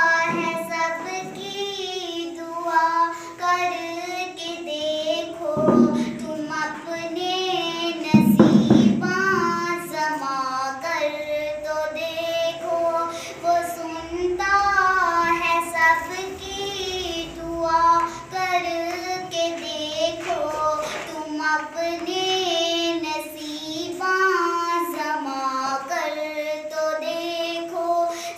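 A young girl singing a naat solo and unaccompanied, her melody wavering between held notes with short breaks between phrases. A couple of brief dull bumps near the middle.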